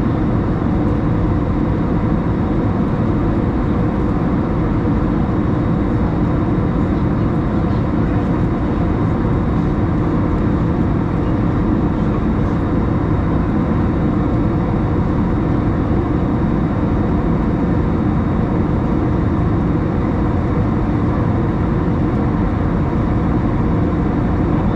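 Steady engine and airflow noise inside the cabin of an Airbus A321 climbing after takeoff, with a low hum and no changes.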